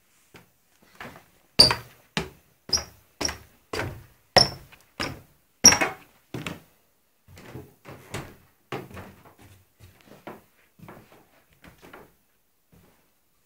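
A series of irregular knocks and thumps, about two a second, loud for the first six seconds and then fainter and sparser until they stop about a second before the end. Several of the louder knocks carry a brief high tone.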